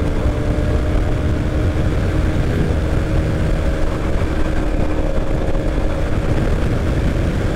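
Motorcycle engine running at a steady speed while riding, with wind and road rumble on the microphone.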